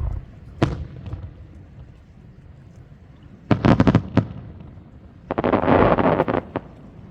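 Aerial fireworks bursting: a low boom, then a sharp bang, followed by two rapid volleys of crackling bangs, the second denser and longer.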